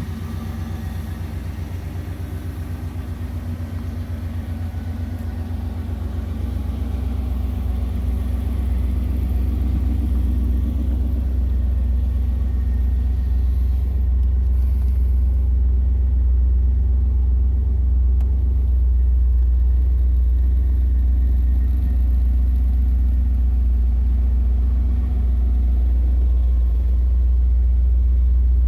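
A 1984 Pontiac Firebird Trans Am's 5.7-litre Tuned-Port Injection V8 running with a deep, low rumble. It grows steadily louder over the first half, then holds even.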